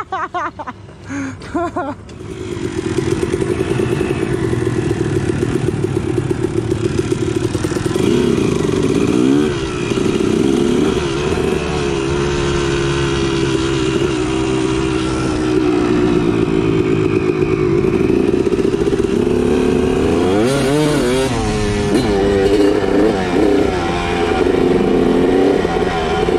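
Dirt bike engine running hard under load, picking up loudly about two seconds in. The revs drop and climb back twice, around ten seconds in and again around twenty-one seconds in.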